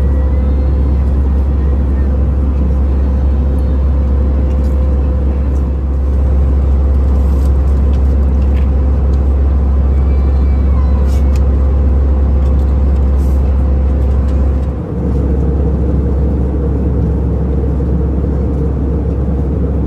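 Airbus A320-200 cabin noise in cruise: a steady low rumble of engines and airflow with a constant hum, briefly dipping about fifteen seconds in.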